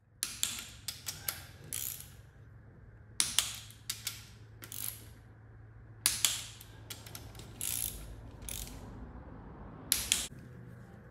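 Hand ratchet clicking in short runs with pauses between them, as a socket winds bolts on top of a bare engine cylinder head.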